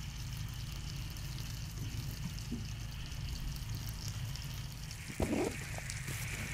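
Quiet outdoor ambience with a steady low rumble, and about five seconds in a brief rustle as the nylon compression sack of a sleeping bag is handled.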